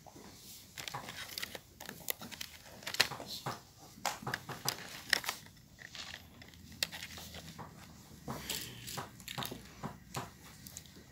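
Chalk writing on a blackboard: uneven runs of short taps and scratches as symbols are written, with short pauses between strokes.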